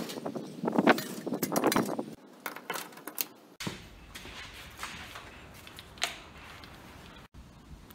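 Rapid clattering and knocking, then light metallic clinks of hand tools being moved about on a cluttered steel workbench as an angle grinder is picked up.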